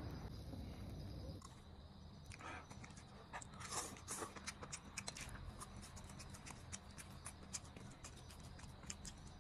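Faint close-up eating sounds: chewing with a scatter of small wet clicks and lip smacks. They come in after a steady hiss cuts off about a second and a half in.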